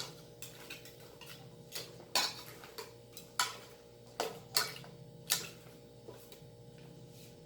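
A metal utensil knocking and clinking against a cooking pot, about seven short sharp strikes spaced irregularly, over a steady low hum.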